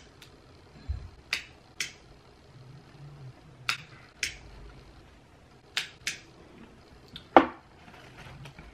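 A string of short, sharp clicks, about ten of them at uneven intervals and some coming in pairs, with the loudest one near the end.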